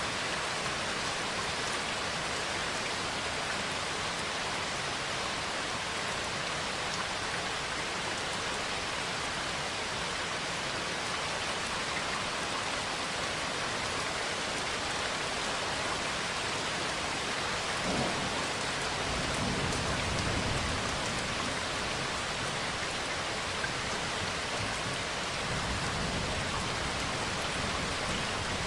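Steady rain falling, with a clap of thunder about eighteen seconds in that rumbles on for a few seconds. A fainter rumble of thunder follows near the end.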